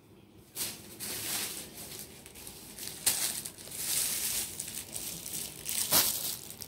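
Clear plastic bags around bundled sportswear sets crinkling as the bundles are handled, in irregular rustles with a sharp crackle near the end.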